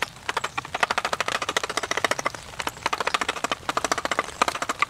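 Hand gouge carving out the hollow of a wooden bowl, the steel chattering across the wood in rapid clicks, about ten a second, in runs of a second or so with short breaks between.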